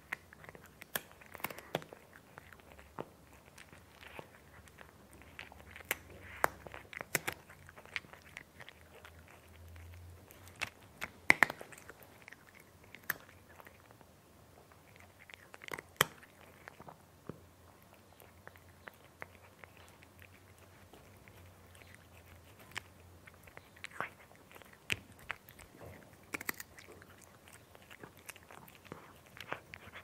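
A cat eating crunchy food, chewing with irregular sharp crunches that come in clusters, with a lull in the middle.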